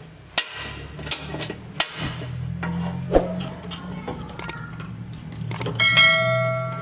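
A gas stove burner being lit under an aluminium saucepan: a few sharp clicks, then the burner running with a low steady hum. Near the end a bright bell chime rings out and fades, the sound effect of a subscribe-button animation.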